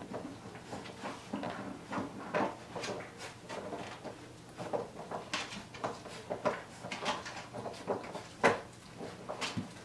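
Puppies chewing and pawing at a hard plastic laundry basket: irregular light clicks, knocks and scrapes, with one sharper knock near the end.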